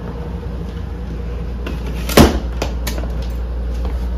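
A hard-shell suitcase being handled: one sharp knock about two seconds in, then a few lighter clicks and knocks, over a steady low hum.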